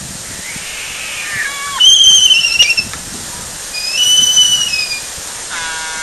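Laysan albatrosses calling during their courtship dance: loud whistling calls that arch up and down in pitch about two and four seconds in. Softer falling whistles come before them, and a lower, rougher sky-call sounds near the end as both birds point their bills skyward.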